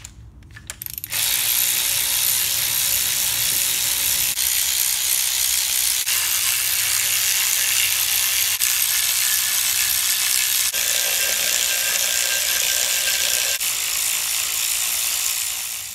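Cordless electric ratchet on a long extension bar, its motor whirring steadily as it spins out the oil sump bolts. It starts about a second in, and its tone changes for a few seconds near the end.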